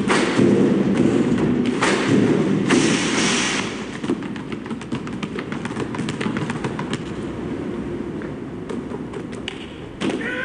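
Basketballs dribbled hard on pavement as rhythmic percussion: a dense run of thuds, heaviest in the first few seconds, then lighter and quicker. Near the end a loud falling call cuts in.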